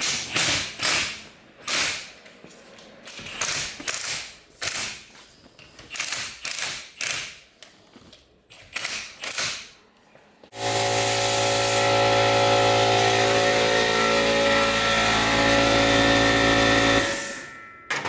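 A string of short ratcheting bursts, about one or two a second, then a power tool running steadily for about six seconds before cutting off near the end.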